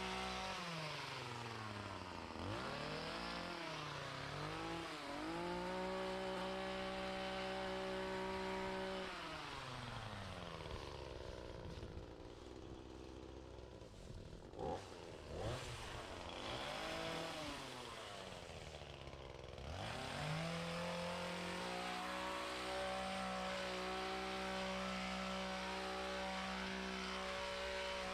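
Small gas engine on lawn equipment, blipped up and down through the throttle several times, dropping to a low idle near the middle, then held at high speed for the last several seconds. Two short knocks come about halfway through.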